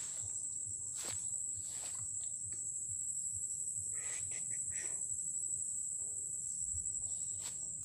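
Steady, high-pitched drone of insects, with faint scattered rustles and ticks.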